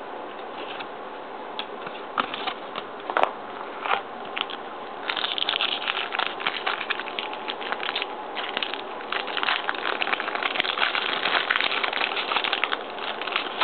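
Plastic wrapper of a hockey card pack crinkling and crackling as it is handled and torn open: a few scattered clicks at first, then denser, louder crinkling from about five seconds in.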